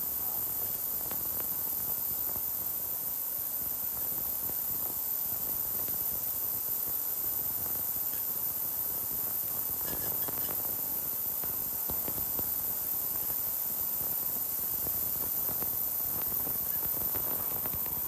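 Conveyor washing machine for steel spatulas running with a steady high hiss.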